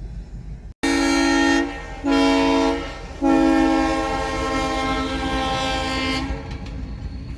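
Diesel locomotive air horn sounding a chord of several notes in three blasts: two short ones, then one long one of about three seconds. A train rumbles underneath.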